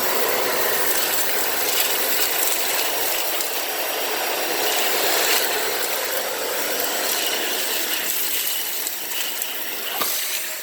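Dyson Ball Animal 2 upright vacuum running on a hard floor with its brush roll off: a steady suction hiss with a dense crackle of cat litter granules clicking through and against the nozzle. Much of the litter is being pushed along rather than picked up.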